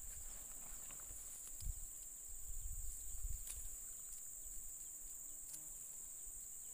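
Steady, high-pitched insect chorus, with some low rumbling about two to three seconds in.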